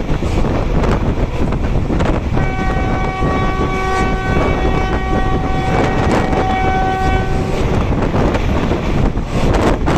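Passenger train running at speed, heard from an open coach door as a steady rush of wind and wheel noise. About two seconds in, the train's horn sounds one long, multi-tone blast lasting roughly five seconds.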